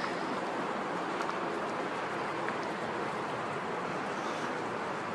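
Steady outdoor hiss of wind and water, with a few faint ticks; no thunder.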